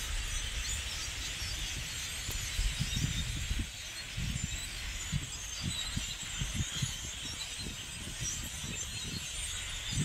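A huge flock of blackbirds passing overhead: a steady din of countless overlapping chattering calls, with irregular low rumbles on the microphone.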